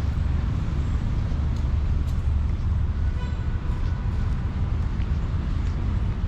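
Road traffic on a city street, a steady low rumble of passing vehicles, with a faint brief high tone about three seconds in.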